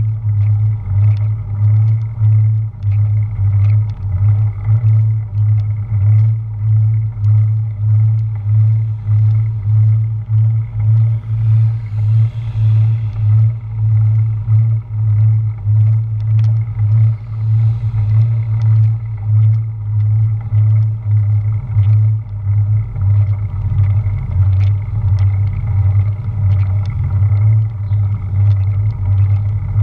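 Wind buffeting and road rumble picked up by a GoPro action camera riding on a bicycle. It is a loud, steady low rumble that pulses unevenly, with scattered light ticks.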